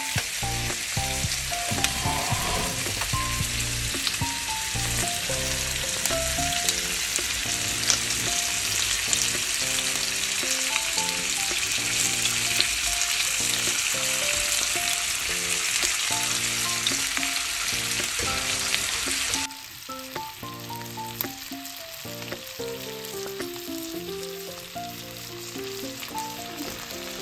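Fish frying in butter on a hot tawa, a dense steady sizzle that drops sharply quieter about two-thirds of the way through. A gentle background melody plays throughout.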